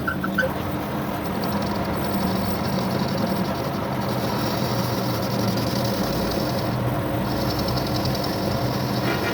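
A machine running steadily: a constant hum with a hiss above it.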